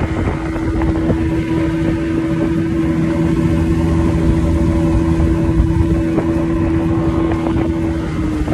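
Motorboat engine running at a steady cruising speed, a loud even drone over a low rumble of hull and water; the engine note drops slightly near the end.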